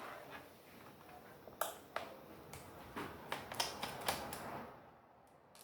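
A screwdriver working screws out of a laptop's bottom cover: a string of small sharp clicks and ticks, dying down near the end.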